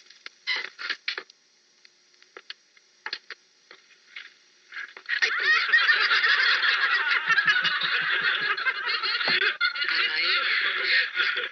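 Courtroom spectators laughing together, a crowd's laughter that breaks out about five seconds in and carries on, preceded by a few short isolated sounds.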